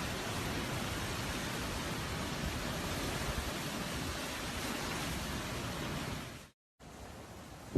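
Steady rush of wind and sea water from storm-driven flooding surf, with no distinct events in it. It cuts off for a moment about six and a half seconds in and comes back quieter.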